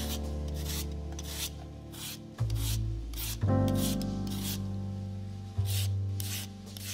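Irregular rasping, scraping strokes, about one or two a second, over background music with sustained keyboard chords. The strokes pause for about a second past the middle.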